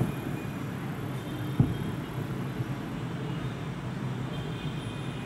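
Fireworks display: one sharp bang about one and a half seconds in over a continuous low rumble.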